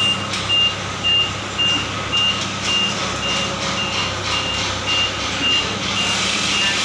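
Mitsubishi forklift backing up, its reverse alarm beeping about twice a second over the steady hum of its engine.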